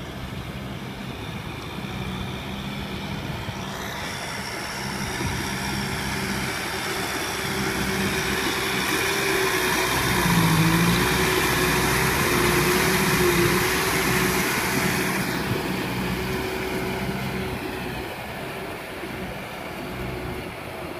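Kubota M6040SU tractor's four-cylinder diesel engine running steadily under load while pulling a rotary tiller through a flooded rice paddy, with a steady whine over the engine note. It grows louder as the tractor comes close, joined by the churning splash of the tiller and tyres in mud and water, then fades as it moves off.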